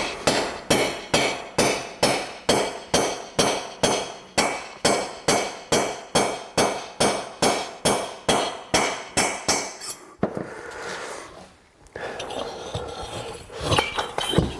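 Hammer blows on a valve guide inserting tool, about three a second, driving a new valve guide into a heated aluminium motorcycle cylinder head. The hammering stops about ten seconds in, followed by quieter handling noise.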